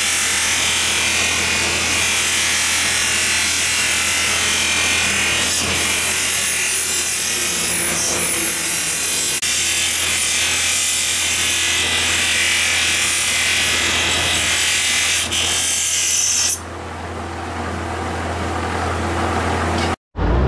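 Power grinder with a spinning abrasive wheel grinding a steel katana blade, a steady harsh grinding hiss over the motor's low hum. About sixteen seconds in the blade comes off the wheel and the hiss stops, leaving only the motor's hum.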